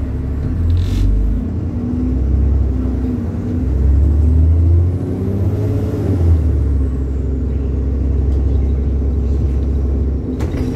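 Diesel engine of a single-deck service bus under hard acceleration, heard from inside the bus: a loud, heavy rumble whose note climbs and drops as it pulls through the gears, with a faint high whine rising and falling in the middle.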